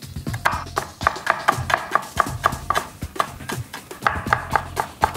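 Chef's knife rapidly mincing shallots on a wooden cutting board: quick, even chops at about four to five a second, over background music.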